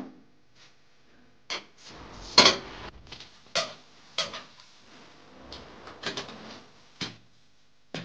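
Clattering knocks of a long metal screwdriver and hands against the metal back panel and plastic of a washing machine: about eight sharp, irregular knocks, the loudest about two and a half seconds in.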